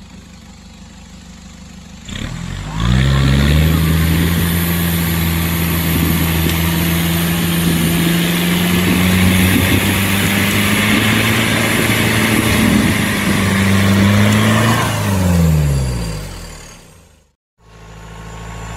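Off-road buggy engine rising to high revs about three seconds in and holding there for some twelve seconds while the vehicle climbs a steep slope with its winch line taut, then falling away and stopping near the end.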